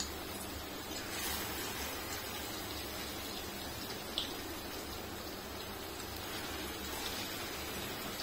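Marinated chicken pieces sizzling as they fry in hot oil in a metal wok, a steady crackle with one sharper pop about four seconds in.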